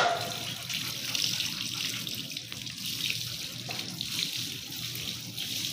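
Garden hose water running over a wet dog's head and splashing onto a concrete floor, a steady rushing splash.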